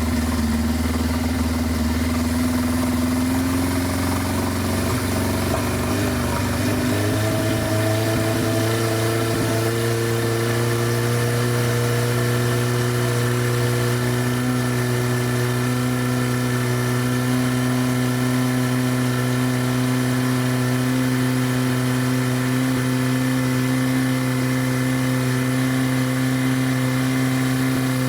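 1983 Suzuki GS1100GK's air-cooled inline-four engine running, revved up over several seconds and then held steady at high revs, around 4,000 RPM, for a stator output test in a charging-system check.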